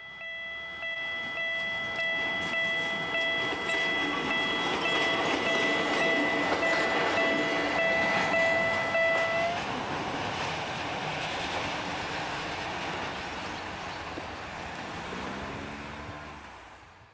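Level-crossing warning signal ringing in steady pulses while an electric train of the Takamatsu-Kotohira Electric Railroad approaches and passes close with a rising rumble of wheels on rails. The signal stops about nine seconds in, and the train's running noise carries on, with a short rising motor whine near the end.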